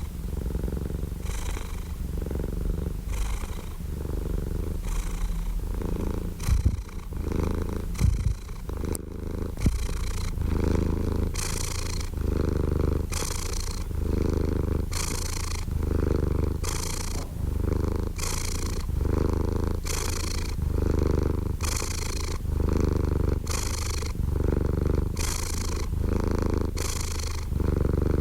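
Domestic cat purring close up: a continuous low rumble that swells and eases with each breath, about one breath a second. A few brief clicks come about a quarter to a third of the way in.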